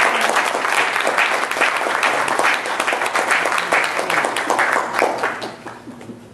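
Audience applauding, many hands clapping together; the applause tapers off about five and a half seconds in.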